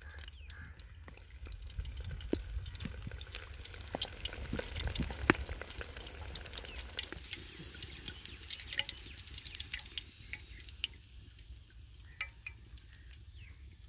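Chicken leg pieces deep-frying in hot oil in a steel pot: dense crackling and popping with a hiss, over a low steady rumble. One sharp pop about five seconds in; the crackling thins out over the last few seconds.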